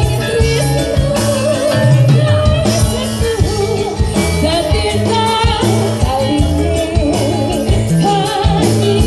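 Live Javanese jaranan campursari music: a singer's wavering melody over a steady drum-driven beat and sustained low ensemble tones.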